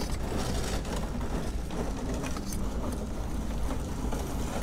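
Steady low rumble of background noise, with a few faint knocks and scrapes as a cane is pushed into the hollow top of a sand scoop's handle.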